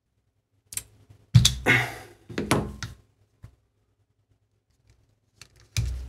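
Metal parts of a milling-machine joystick assembly handled on a workbench: a click about a second in, then a cluster of knocks and a short scrape, and another knock near the end.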